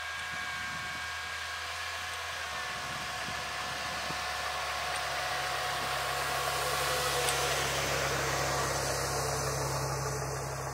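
Jeep Wrangler LJ's 4.0-litre straight-six engine running at low speed as the Jeep drives slowly past, growing louder to a peak about two-thirds of the way through and then fading as it moves away.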